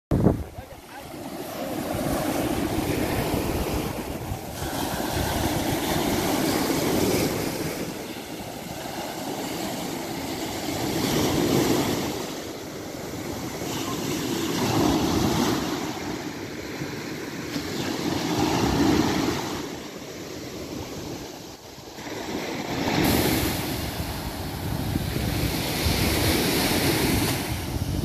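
Surf on a sandy beach: small waves breaking and washing up the sand, the wash swelling and fading every three to four seconds.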